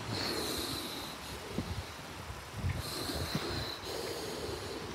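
Outdoor night ambience: a low, irregular rumble with thumps and a steady hiss, and a high buzz that comes in two bursts of about a second, one at the start and one about three seconds in.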